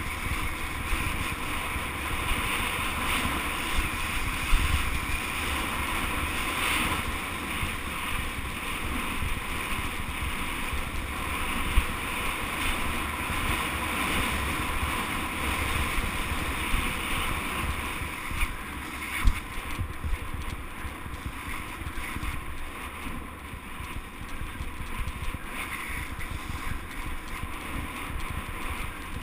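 Mountain bike riding down a dirt singletrack: wind rushing over the action camera's microphone and tyres rolling on the dirt, with a few sharp knocks as the bike hits bumps. The rush eases somewhat about two-thirds of the way through.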